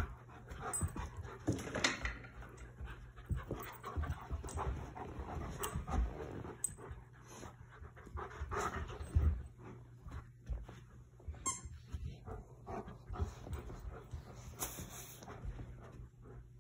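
Dogs panting and scuffling as an Alaskan Malamute and a Newfoundland puppy play together, with irregular light knocks and rustles.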